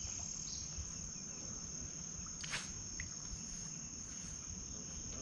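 Steady, high-pitched chorus of insects such as crickets, with a brief soft noise about halfway through.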